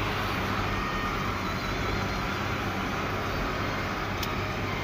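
Fully loaded Isuzu FTR truck's diesel engine running steadily with a low hum, heard from inside the cab along with rough-road noise. There is a brief click about four seconds in.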